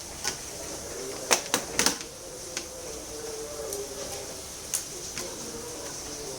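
Scattered sharp clicks and taps from an HP 15-da0327tu laptop's parts being handled during disassembly, about seven in all, with a quick cluster of three around one and a half to two seconds in.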